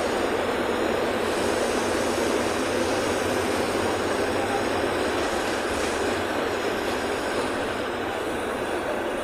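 City bus driving at speed, heard from inside the cabin: a steady rumble of engine and tyre noise through a road tunnel, easing slightly near the end as the bus comes out.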